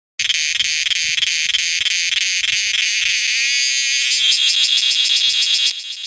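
Cicadas singing: a loud, shrill buzz pulsing about three times a second, which turns into a steadier drone and drops in level shortly before the end.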